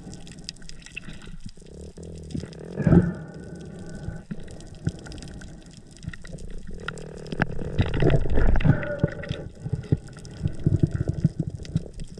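Underwater sound picked up inside an action camera's housing: water rushing and bubbling around the swimmer, with a frequent crackle of sharp clicks. There is one louder surge about three seconds in and a longer, louder stretch around eight seconds.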